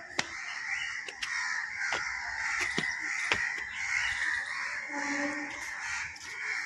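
Many crows cawing together in a continuous harsh chorus, with a few sharp clicks.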